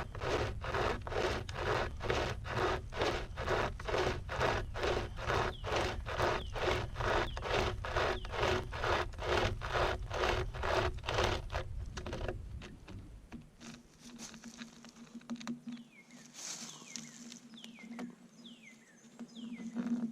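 Pocket chainsaw, a flexible cutting chain pulled back and forth by two T-handles, sawing through a cedar log at a steady two strokes a second. The sawing stops about twelve seconds in, leaving faint scrapes and clicks over a low steady hum.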